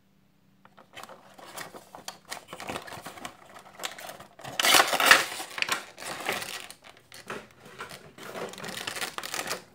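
Cardboard window box and clear plastic insert of a Funko Pop vinyl figure being opened and handled: a dense run of crinkling, rustling and small clicks starting about a second in, loudest about halfway through as the plastic insert is pulled out.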